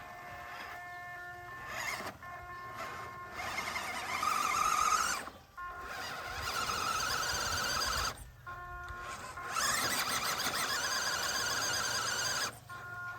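Small 1/24-scale RC crawler's electric motor and gearbox whining in bursts as it drives and spins its tyres in sand. There are three main pushes, each lasting one to two seconds.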